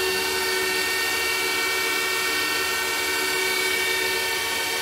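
Bitmain Antminer S17e ASIC miner's cooling fans running at high speed while it hashes: a steady rush of air with several steady whining tones over it.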